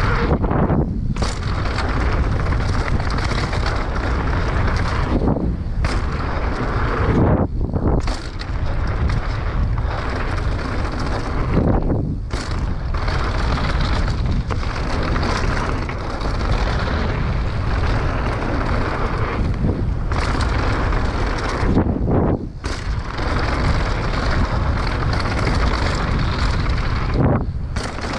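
Mountain bike clattering and rattling heavily as it rolls down a rough trail, mixed with tyre roar and wind buffeting the microphone. There are a few brief lulls.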